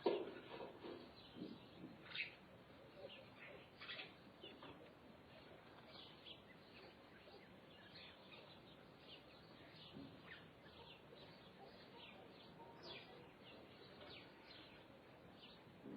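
Several birds chirping in open country: many short, scattered calls over a faint background hiss, with one louder call at the very start.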